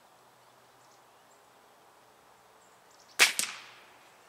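Benjamin Prowler break-barrel air rifle firing one shot about three seconds in: a single sharp crack, followed a split second later by a second, weaker smack that dies away quickly.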